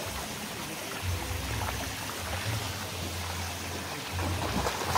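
Swimming-pool water splashing and trickling steadily, with faint music underneath.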